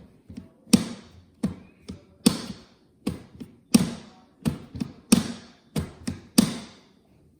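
A series of about a dozen sharp taps on a hard surface in an uneven, drumming rhythm, roughly two a second, each with a dull thud under a bright crack.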